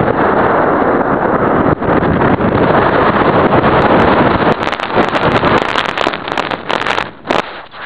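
Steady rush of wind over the microphone of a model rocket's onboard camera as the rocket falls, tumbling, after ejection. A run of sharp clicks and knocks comes in the second half, and the rush drops away briefly near the end.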